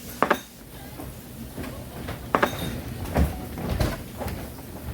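Clatter of kitchenware: about six sharp knocks and clanks, two in quick succession near the start, over a low rumble.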